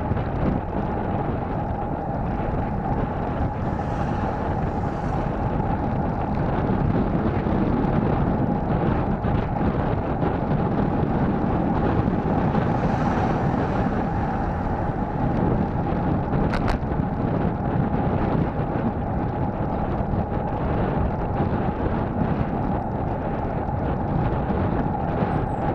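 Wind buffeting the microphone and road noise from a bicycle rolling along a paved road, with a steady high hum and one sharp click about two-thirds of the way through.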